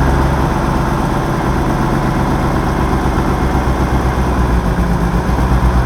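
Freshly rebuilt Peugeot XU9J4 1.9-litre 16-valve four-cylinder running steadily at idle, just after its first start since the rebuild.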